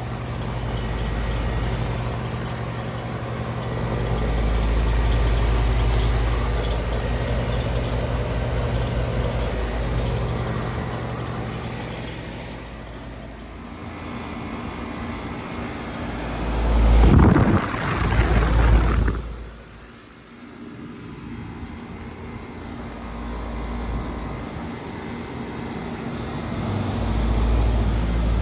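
Heat pump outdoor units running in heat mode: a steady compressor and fan hum with a constant low tone. A little past the middle, a louder rushing noise swells for about two seconds, then eases off.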